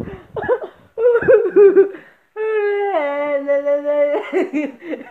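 Teenagers laughing and giggling. In the middle comes a steady held note, about two seconds long, that drops once in pitch and cuts off suddenly, followed by more laughter.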